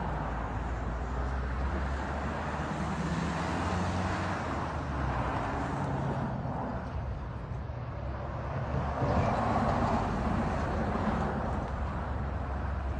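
Road traffic noise from cars on a highway: a steady rumble and hiss, swelling louder about nine seconds in.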